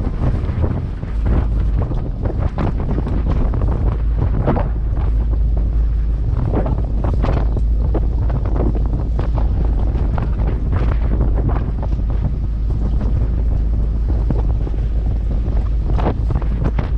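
Strong wind buffeting the microphone on an open fishing boat at sea, a steady low rumble with gusts, and choppy waves splashing against the hull.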